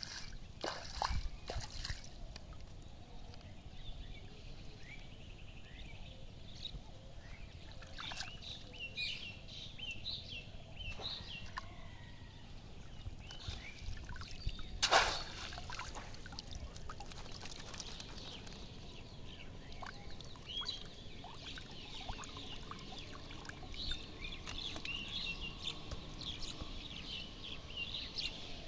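Water splashing, sloshing and trickling as bamboo fish traps are worked and lifted out of shallow water. Birds chirp throughout, and one sharp splash or knock about halfway through is the loudest sound.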